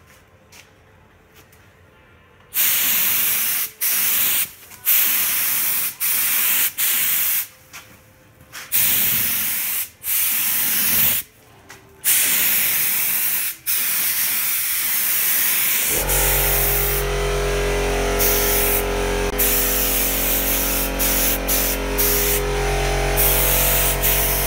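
Gravity-feed HVLP spray gun laying red metallic basecoat on a car body panel: about a dozen bursts of hissing spray, each about a second long, as the trigger is pulled pass after pass. About two-thirds of the way in, a steady low machine hum starts and runs under the spraying.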